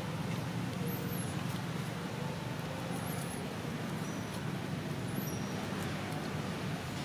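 Steady outdoor background with a constant low rumble, and a few faint, short, high chirps, about one every two seconds.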